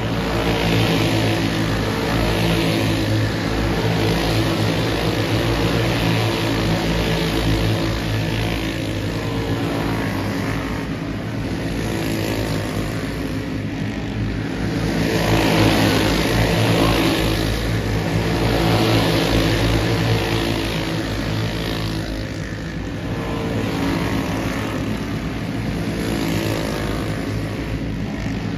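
A field of dirt-track race cars running laps on a dirt oval, their engines revving steadily and swelling louder, then fading, as the cars go by.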